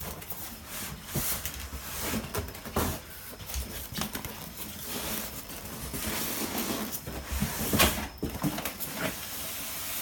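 Packaging being handled and torn open: continuous rustling and crinkling with scattered sharp crackles and light knocks, the loudest near the end.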